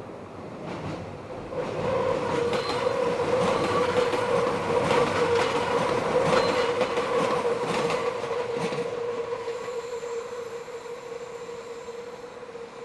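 Meitetsu electric train passing through a curve, its wheels squealing on the rail in a steady, held tone, with clicks of the wheels over rail joints. The sound builds over the first two seconds, is loudest in the middle, then fades as the train moves away.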